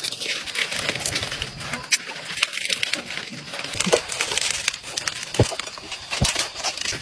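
Fresh coconut palm leaves rustling and crackling as they are folded and woven by hand, with a couple of low knocks in the last two seconds.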